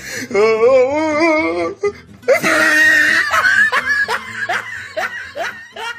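Background music with a steady bass line under a drawn-out voice that wobbles in pitch, followed by laughter in short repeated bursts.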